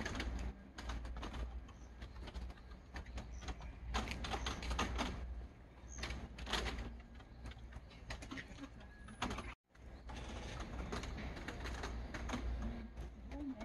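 Background ambience: scattered clicks and knocks over a steady low rumble, cutting out for a moment about ten seconds in.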